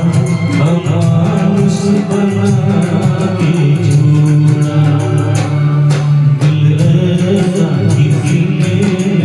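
Music: a Hindi song, with instruments and some singing over a steady low accompaniment.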